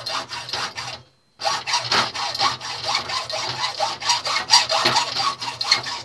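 Hand hacksaw cutting through a brass furniture knob held in a vise, in steady back-and-forth rasping strokes. There is a short silent break about a second in.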